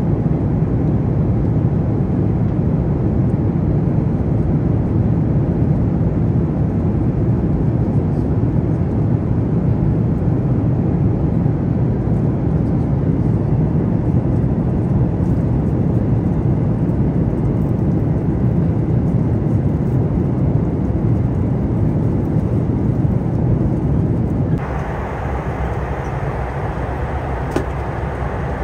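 Steady low cabin rumble of a Boeing 737 MAX 9 airliner. About 25 seconds in it switches abruptly to a different, brighter and slightly quieter steady noise.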